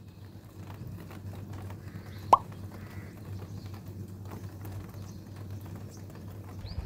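Raindrops dripping and tapping in scattered light ticks, with one sharp loud plop about two seconds in, over a steady low rumble. A bird gives a short rising chirp near the end.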